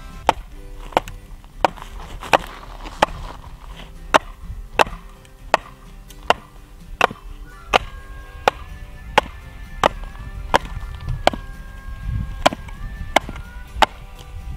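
Batoning: a wooden stick knocking on the spine of a Cold Steel Leatherneck Tanto D2 knife wedged in a frozen log, splitting it. There are sharp knocks about every 0.7 s, over background music with held tones.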